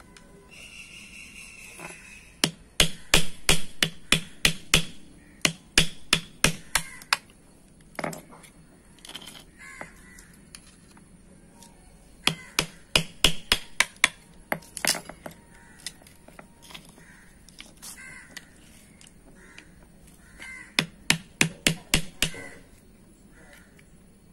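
Metal hammer tapping a punch held against a drum brake shoe, fixing an oversized lining onto the shoe: three runs of sharp metallic strikes, about three to four a second, with pauses between the runs.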